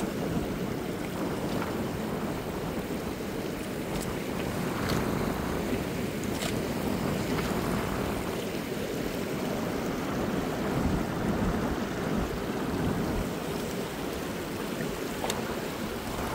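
Ocean surf washing steadily on the beach, with wind rumbling on the microphone and a few faint clicks.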